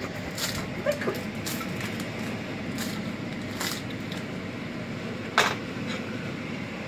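Steady background hum with a few short clicks and rustles from handling a plate of cut spring rolls on a paper towel, the loudest click about five seconds in.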